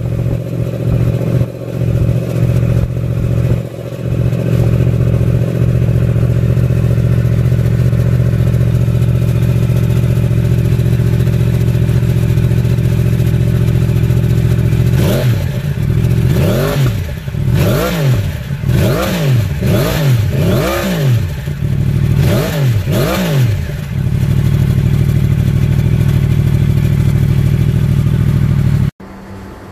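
Yamaha R1's crossplane inline-four engine idling through an Akrapovic titanium slip-on exhaust. About halfway through it is given about eight quick throttle blips, each rising and falling in pitch, then settles back to idle. The sound cuts off suddenly near the end.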